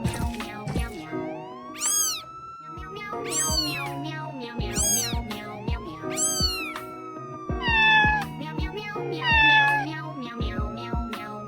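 Background music with a steady beat, with cat meows set into it as part of the track: four rising-and-falling meows about a second and a half apart, then two longer meows that fall in pitch near the end.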